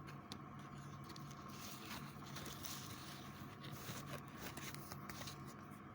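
Quiet background: a faint steady hum and hiss with a few soft clicks.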